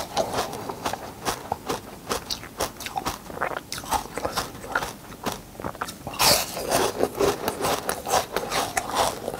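Ice being bitten and crunched between the teeth, close to the microphone: a quick, irregular run of sharp cracks and crunches, with a louder burst of crunching about six seconds in.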